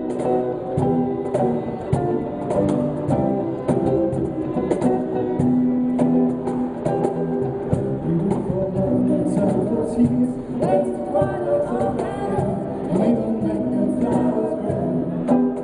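Live acoustic band music: acoustic guitar and violin over a steady cajón beat, with singing in the second half.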